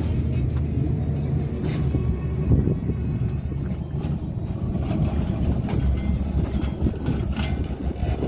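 Heavy diesel engine of a construction vehicle running steadily, with scattered knocks and clanks.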